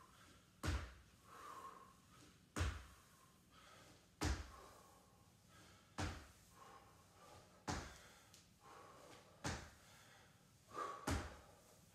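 Squat jumps: trainers landing on a wooden floor, a thud about every second and three-quarters, seven landings in all.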